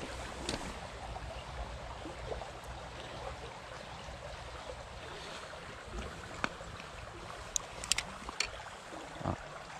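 Shallow stony stream water running steadily, with a few short sharp clicks near the end.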